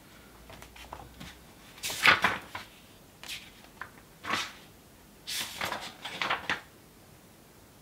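Pages of a book being turned: several short papery swishes and rustles, the loudest about two seconds in, then a quick run of flips near the end.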